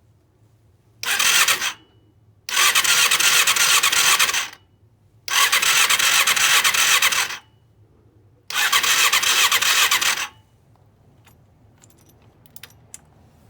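Electric starter cranking a Honda CBR250R MC17's four-cylinder engine in four attempts, a short one then three of about two seconds each, and the engine never catches: it has no spark.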